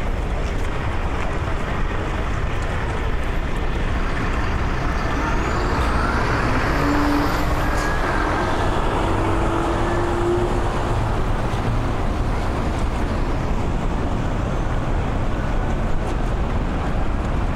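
Steady city traffic noise with a low rumble. A heavy road vehicle passes about halfway through, its engine hum and a high whine rising and then falling as it goes by.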